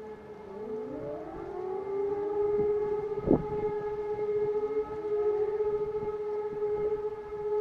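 Several outdoor warning sirens sounding together during a monthly siren test: a steady siren tone while other sirens wind up, rising in pitch, from about half a second in. A single sharp thump about three seconds in.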